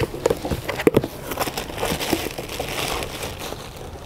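A cardboard box being handled and opened, with plastic wrapping crinkling and rustling as hands dig inside. There is a sharp knock about a second in.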